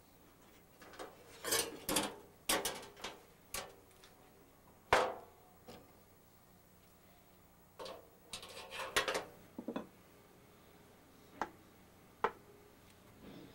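Scattered metal knocks, clicks and short clatters from handling a Coleman propane camp stove and small metal fittings on a wooden workbench, with the sharpest knock about five seconds in.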